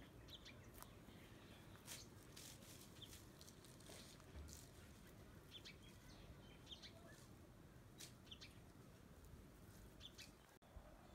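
Near silence: faint, scattered bird chirps, with light rustles and clicks as cut conifer branches are handled.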